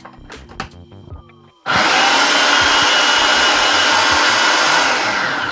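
A 12-cup Stack & Snap food processor's motor switches on suddenly about a second and a half in and runs steadily, its blade mincing red onion, then winds down just before the end. Before it starts there are a few light plastic clicks as the lid is fitted.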